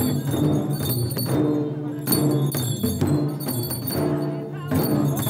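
Several Limbu chyabrung drums, large double-headed barrel drums, beaten by dancers in a steady repeating rhythm, with a bright metallic jingling above the beat.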